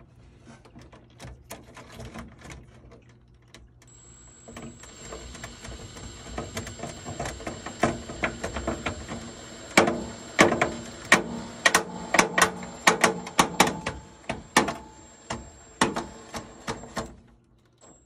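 Craftsman 19.2-volt cordless drill driving a self-tapping screw into plastic: the motor starts about four seconds in with a steady high whine and stops a second before the end, with a rapid string of sharp clicks through the second half that is the loudest part.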